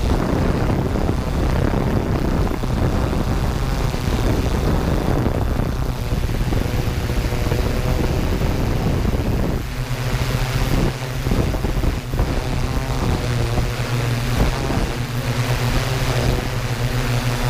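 Yuneec Q500 quadcopter's motors and propellers humming steadily in flight, picked up by the camera on the drone itself. The first half is mixed with rushing wind noise. About ten seconds in, the hum settles into a clearer, steady pitched tone.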